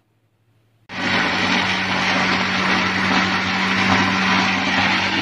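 Westpoint juicer-blender motor switching on suddenly about a second in and running steadily at full speed, with an even whir over a constant hum. It is churning yogurt-cultured cream and tap water into butter.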